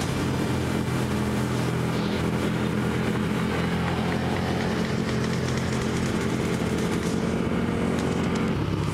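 KTM 1290 Super Duke R Evo's V-twin engine running steadily under way, its pitch holding nearly constant, over a continuous rush of wind noise.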